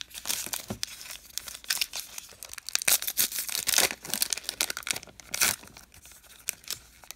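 A Topps Allen & Ginter baseball card pack wrapper being torn open by hand: crinkling and ripping that is loudest in the middle, with a last sharp rip about five and a half seconds in, then quieter rustling.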